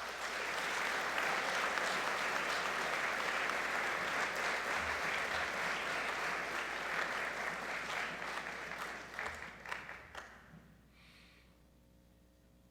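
Audience applauding in a gymnasium, steady for about nine seconds, then thinning and dying away about eleven seconds in.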